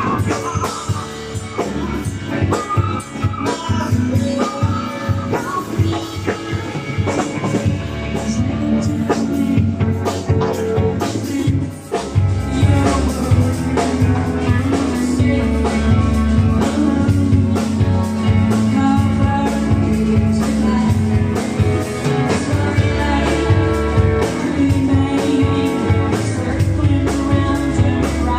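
A rock band playing, with a drum kit, guitar and singing. The music gets louder and fuller about twelve seconds in.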